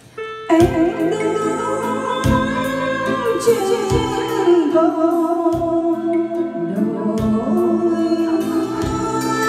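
A Vietnamese karaoke song, a singing voice over a backing band with a steady beat, played through an Amate N12 Pro home karaoke loudspeaker pair. The music comes in about half a second in, after a brief pause.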